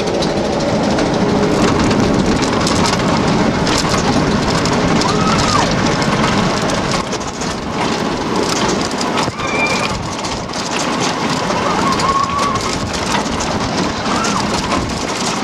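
Mack bobsled roller coaster car speeding down its open trough: a steady rush of wind and wheel noise with fine rattling from the car.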